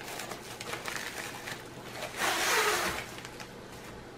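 Small white padded plastic envelope being opened by hand: scattered light crinkles, then a louder rasping noise lasting just under a second, about two seconds in.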